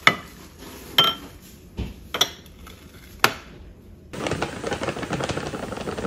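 Ceramic tableware clinking sharply about five times. From about four seconds in, a paper flour bag crinkles and rustles steadily as flour is poured from it into a ceramic mixing bowl.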